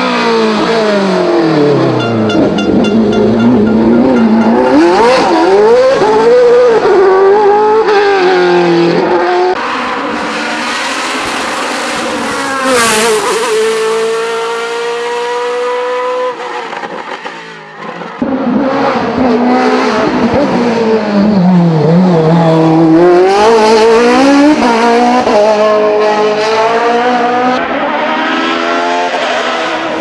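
Racing cars' engines at full throttle, revving up and dropping back in pitch through repeated gear changes as several cars pass one after another. The sound changes abruptly about ten and eighteen seconds in.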